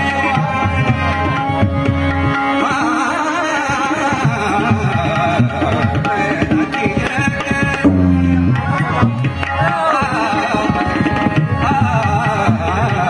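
Tabla playing a fast, even rhythm under a harmonium's held notes in raag Yaman, with the singer's rapid, wavering vocal runs coming in twice.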